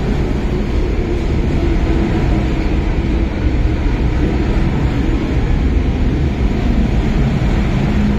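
MTR Tsuen Wan Line M-Train electric multiple unit running along an underground station platform: a steady rumble of wheels on rail and traction motors, with a faint motor hum.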